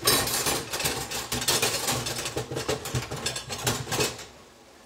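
Garlic frying in oil in a terracotta pan, with a busy run of clattering and scraping that stops suddenly about four seconds in.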